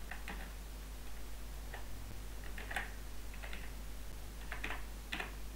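Computer keyboard keys clicking as a filename is typed: scattered single keystrokes, a few at a time with pauses between, over a faint steady hum.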